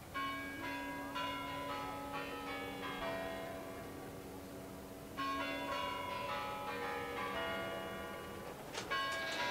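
Church bells ringing: a large low bell struck twice, about five seconds apart, each stroke ringing on, while smaller bells ring quick runs of notes between its strokes, with a louder clash near the end.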